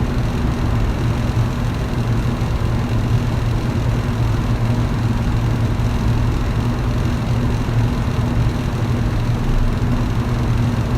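Electric fan running steadily: a low motor hum under an even rush of moving air.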